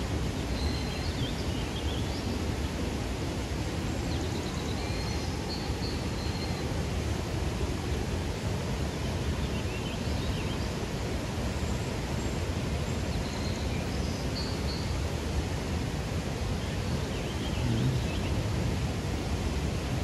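Waterfall: a steady, even rush of falling water, with a few faint high chirps over it.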